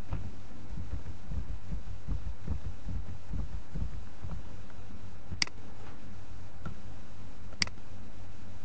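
Steady low hum with soft, irregular low thumps. Two sharp computer mouse clicks a little over two seconds apart, the first past halfway and the second near the end.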